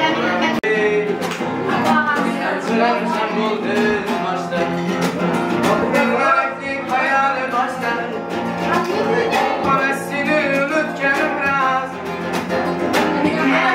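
A singer performing a song over instrumental accompaniment, the voice wavering through held notes above a steady beat.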